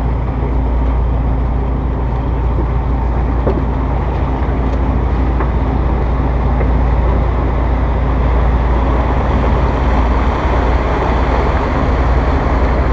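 Diesel boat engines droning steadily, with a rush of engine noise and churning water swelling from about halfway as a 45-foot Coast Guard Response Boat-Medium powers away on its waterjets.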